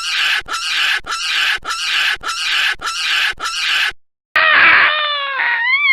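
Baboon calling in a steady series of grunts, about two a second. After a short break comes a drawn-out, higher screaming call that dips and then rises in pitch.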